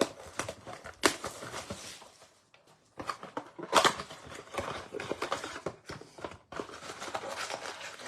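Plastic shrink-wrap crinkling and tearing as a sealed blaster box of baseball cards is opened, with irregular sharp clicks and a short pause about two and a half seconds in.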